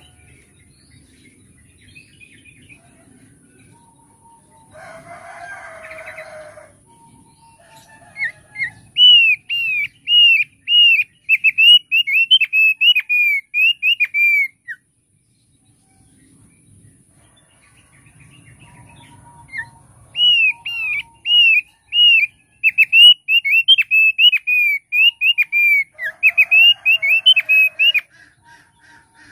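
Opior paruh tebal (thick-billed white-eye) singing two bouts of fast, repeated arched whistled notes. The first runs for about five seconds, and the second starts about twenty seconds in and lasts about eight seconds.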